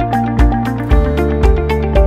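Background music with a steady beat: a low thump about twice a second under a melody of short pitched notes.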